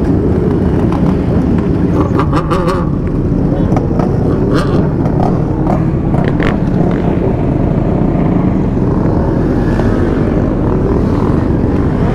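Many sport bike, dirt bike and quad engines running together at low speed, their overlapping pitches wavering up and down as throttles open and close.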